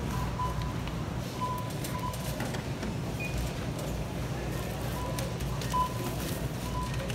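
Checkout barcode scanner beeping: short, single-pitched beeps at irregular intervals, a few seconds apart at most, as items are scanned. Beneath them runs a steady low hum of store background noise.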